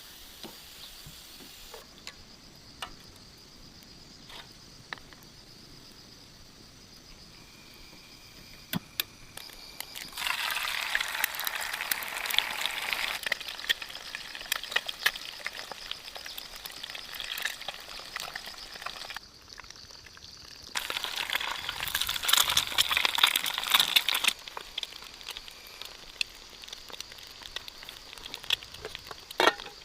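Steady high drone of insects, with scattered clicks and two bursts of crackling, sizzling noise a few seconds each, the first about ten seconds in and the second after about twenty.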